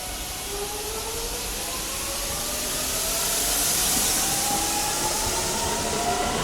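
Electric train pulling out and accelerating: its traction motors give a whine of several tones that rises steadily in pitch, over a hiss that grows louder.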